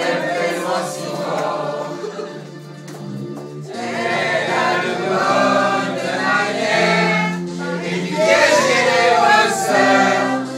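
A mixed group of men and women singing a song together in French, read from lyric sheets, as a loud amateur chorus. The singing eases briefly about three seconds in.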